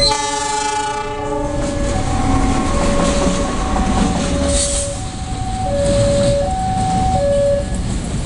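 Diesel locomotive sounds one horn blast of about a second, then runs past close by with its engine rumbling and wheels clacking over the rail joints. Throughout, the level crossing's electronic warning alarm repeats a two-tone alternating chime.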